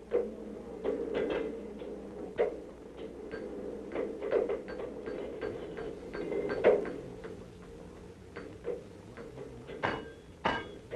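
Hand hammer striking steel on an anvil: irregular sharp metallic blows, about one to two a second, some with a short ring, over a low steady hum.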